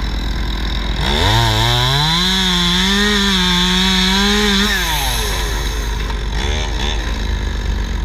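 Two-stroke chainsaw revving up about a second in and held at high speed for nearly four seconds, then dropping back toward idle, with a short second rev near the end.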